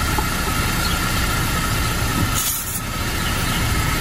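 Car engine idling steadily, with one short hiss of tyre air about two and a half seconds in as the inflator's quick-connect chuck is pressed onto the tyre valve.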